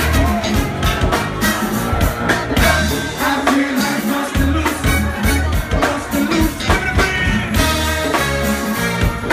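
Live go-go band playing: a steady drum beat over a repeating bass line, with singing.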